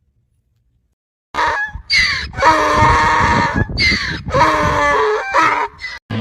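A rooster crowing, twice in a row: two loud multi-syllable crows, each rising into a long held note, after about a second of silence.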